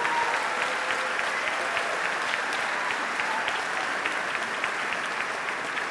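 Audience applauding: many hands clapping in a steady wash that eases off slightly near the end.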